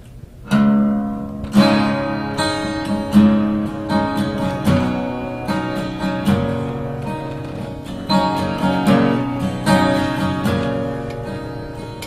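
Acoustic guitar strummed in rhythm as the instrumental opening of a country song, starting about half a second in.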